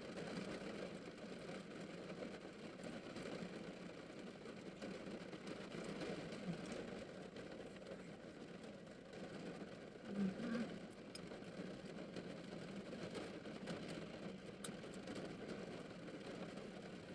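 Steady low noise inside a car cabin, with a short low hum about ten seconds in and a few faint clicks.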